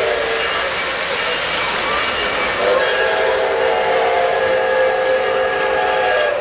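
Recorded steam whistle from a 3-rail O-scale model steam locomotive's onboard sound system: a blast that ends about half a second in, then a long chime blast from about two and a half seconds in, over the steady running noise of model trains on the track.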